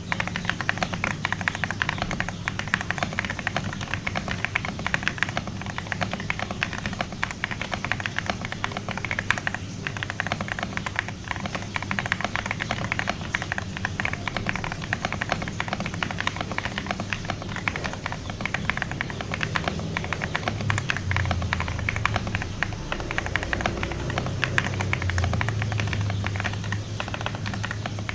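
Fast typing on a Vortexseries Xera87 mechanical keyboard with Outemu Jade White switches: a dense, irregular run of key clicks that starts abruptly. A low steady hum sits underneath.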